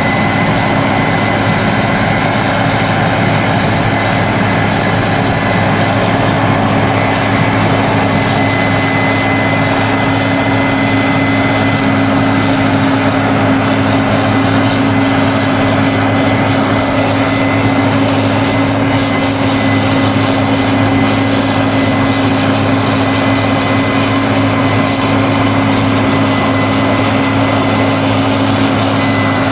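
Case IH combine harvester running under load while harvesting grain: a steady engine and threshing drone with a thin, constant high whine over it.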